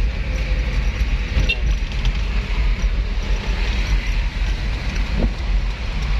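Steady low rumble of road traffic, with a vehicle running close by.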